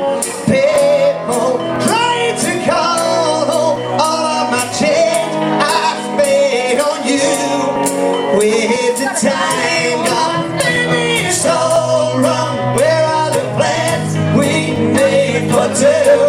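Pop-rock song: a singer's voice over backing instruments and a steady beat.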